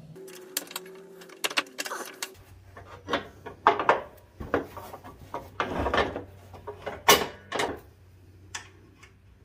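Irregular sharp clicks and clunks of small metal parts being handled as a washer and hitch pin are fitted onto a riding mower's deck hanger, with the loudest knocks about three and a half and seven seconds in.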